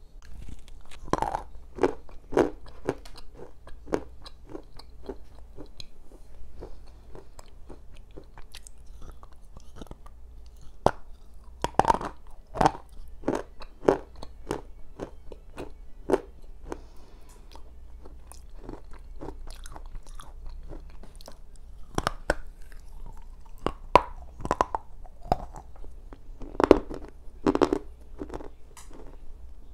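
Close-miked biting and chewing of a bar of black slate clay softened by soaking in boiling water: sharp crunches in irregular clusters, the loudest near the start, about twelve seconds in and near the end, with quieter chewing between.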